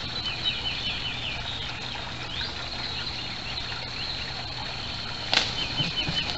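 Small birds chirping and trilling throughout. About five seconds in comes a sharp knock, then a few soft low thumps as a heron takes off from inside the pond fence.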